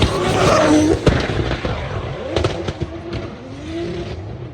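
A drift car running hard at high revs, with tyre noise, then backing off. Its exhaust cracks with a sharp bang about a second in and a quick run of pops a little later.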